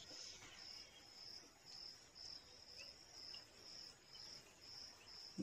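Faint cricket chirping, a high pulsed trill repeating about twice a second over near silence, with a soft knock right at the end.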